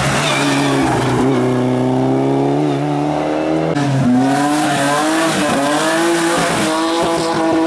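Racing car engine at high revs under hard acceleration. Its pitch climbs steadily, drops abruptly about four seconds in, then climbs and wavers again.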